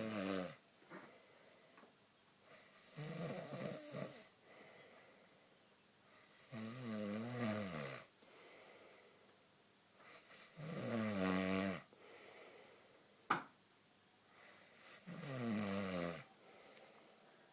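A sleeping man snoring: four long buzzing snores, each about a second and a half with a wavering pitch, coming about every four seconds. A single sharp click sounds a little after the third snore.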